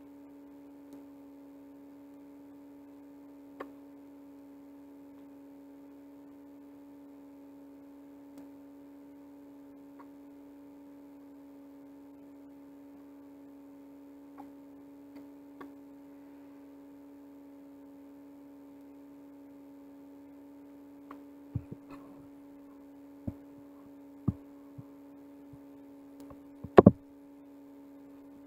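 A steady electrical hum with a few faint clicks. In the last several seconds come a run of knocks and bumps, the loudest a sharp double knock about 27 seconds in, as the recording device is handled close to the microphone.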